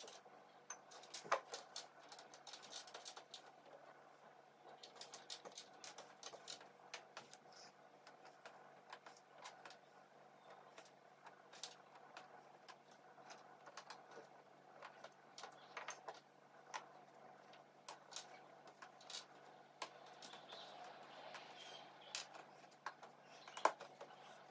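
Cardboard jigsaw puzzle pieces being sorted by hand on a tabletop: faint, irregular light clicks and taps as pieces are picked up and dropped onto piles, with a sharper click about a second in and another near the end.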